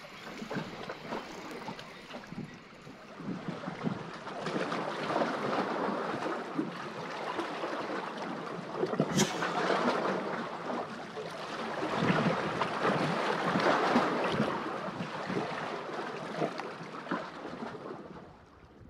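Lake water lapping and splashing against rocks, swelling and fading in several waves, with small crackling splashes and one sharp splash about nine seconds in.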